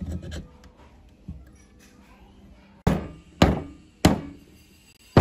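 Three sharp hammer taps, roughly half a second apart, each ringing briefly, on a small four-stroke engine's crankcase cover, seating it onto the block around the crankshaft bearing. Light clatter of the engine parts being handled comes first.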